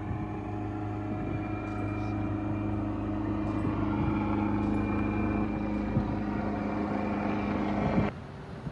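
A vehicle engine running steadily at an even, unchanging pitch, which cuts off abruptly about eight seconds in.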